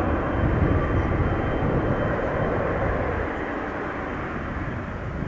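Boeing 777 freighter's two GE90 turbofans running at taxi power as it rolls past: a steady jet rumble with a faint high whine, growing slightly quieter in the last couple of seconds.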